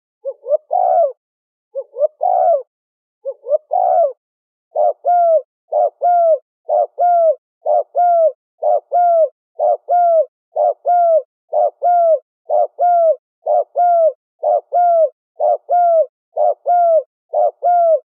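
Spotted dove cooing: four slower coo phrases about a second and a half apart, then from about five seconds in a fast, even run of short coos, about three every two seconds.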